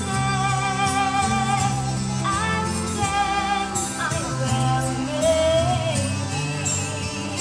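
A woman singing solo into a microphone, amplified through stage speakers, holding long notes with vibrato over a low instrumental accompaniment.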